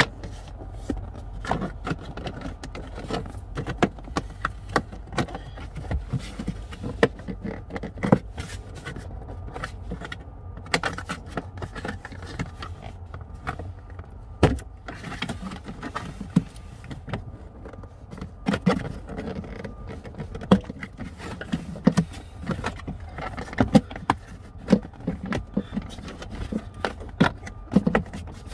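Hands handling plastic car interior trim and wiring: irregular small clicks, knocks and rattles as the kick panel is worked and the wires are tucked along it, over a steady low rumble.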